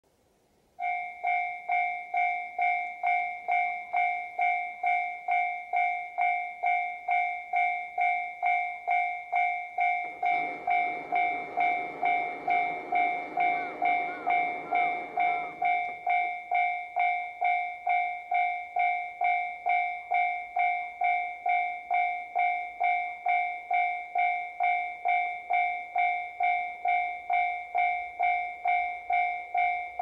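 Japanese level-crossing warning bell ringing over and over, about two dings a second, starting about a second in: the signal that a train is approaching. A broader rushing noise joins it for several seconds in the middle.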